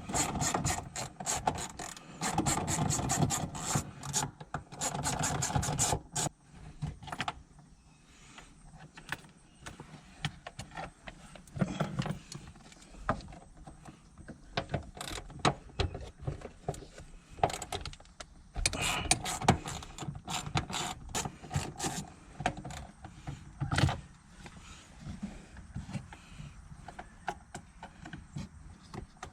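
Socket ratchet clicking in quick runs as the shifter's mounting bolts are backed out. There is a long run of clicking at the start and another about two-thirds of the way through, with knocks and rattles of tools and parts between them.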